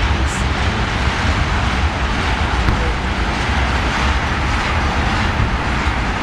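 Tank cars of a freight ethanol train rolling past: a steady rumble and rush of steel wheels on the rails.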